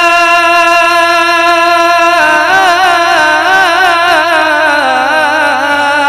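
A man singing a naat, drawing out one syllable without words: a long held note, then about two seconds in a run of wavering, ornamented turns that slide lower near the end.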